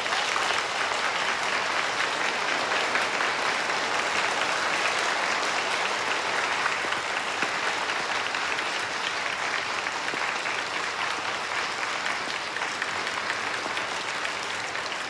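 Audience applauding steadily, thinning out slightly near the end.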